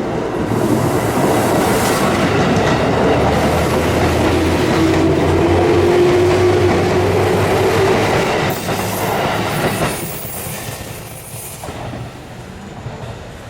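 A Seibu Tamako Line electric commuter train passes over the level crossing, its wheels clattering over the rail joints. It is loudest through the middle and fades over the last few seconds.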